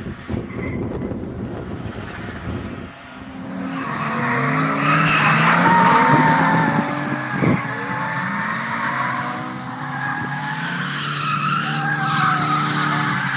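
A car's engine revving hard, its pitch rising and falling, with tyres squealing as it slides through a drift. It is loudest about five seconds in, and there is one sharp knock a couple of seconds later.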